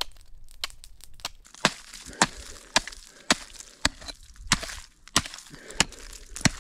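An axe chopping a hole through lake ice about three inches thick. A few light taps, then from about a second and a half in, steady sharp strikes a little under two a second, with chipped ice crunching between blows.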